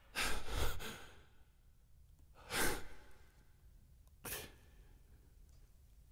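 A man breathing out heavily close to a studio microphone, three times: a long breath of about a second at the start, another near three seconds in, and a shorter one just past four seconds. The breaths come right after a sung song ends.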